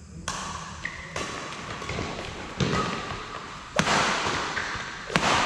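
Badminton rackets striking a shuttlecock in a doubles rally: five sharp hits, a little over a second apart, echoing in a large sports hall.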